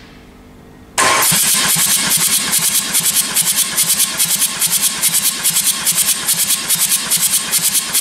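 Starter motor cranking a Ford 2.0 TDCi four-cylinder turbodiesel for a compression test of its first cylinder. It cuts in about a second in, with an even pulse of about five beats a second as the cylinders come up on compression. The gauge builds to 28 kg/cm², a good, even reading.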